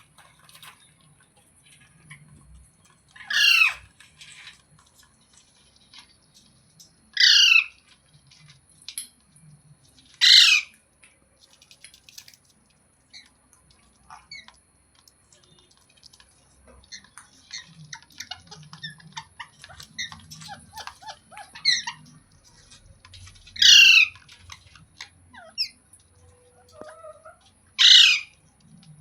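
Parrot giving a series of loud, harsh squawks, each about half a second long and a few seconds apart, with softer chirps and chatter between them.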